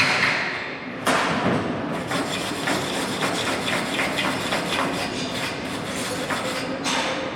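Hand tool knocking and scraping on steel in quick, repeated strokes, starting with a sharp knock about a second in, typical of cleaning a weld with a chipping hammer and wire brush.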